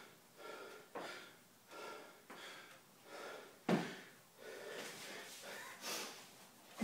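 A man breathing hard and fast, about one loud breath a second, winded from exertion during a power-clean and ring-dip workout. A single sharp knock sounds about midway.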